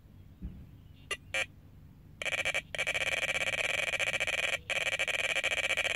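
Electronic carp bite alarm sounding a run: two single beeps, then from about two seconds in an almost continuous, rapid high-pitched tone with a couple of brief breaks, as line is pulled from the rod by a fish that has taken the bait.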